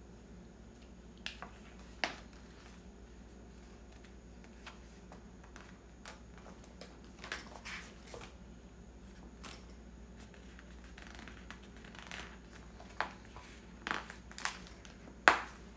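Paper and sticker sheets being handled: scattered light clicks and short paper rustles, with the sharpest click near the end.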